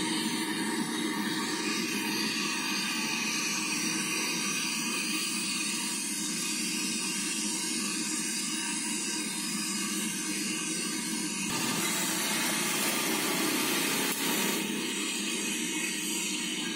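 Hot oil sizzling steadily in a large pan as battered fritters deep-fry.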